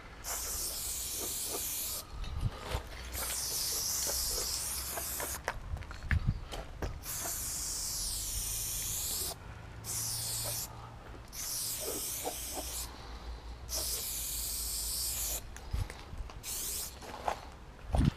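Aerosol spray paint can hissing in repeated bursts of one to three seconds with short breaks between, as a graffiti outline is sprayed onto a brick wall; a few light knocks fall between the bursts.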